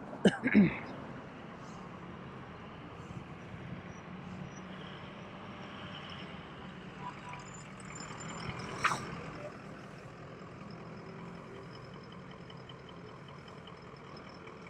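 Steady noise of cars and trucks passing along a town street. Two short loud sounds come about half a second in, and a sharp click-like sound about nine seconds in.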